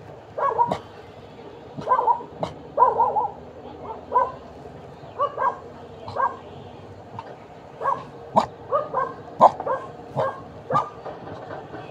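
A dog giving short barks, a dozen or so at irregular intervals, with a few sharp clicks in between.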